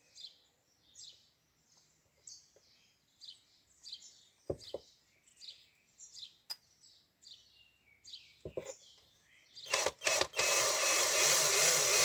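Birds chirping and a few sharp clicks, then near the end an electric drill starts with two short bursts and runs steadily, drilling a lubrication hole into a Honda Bros 150 motorcycle's clutch basket.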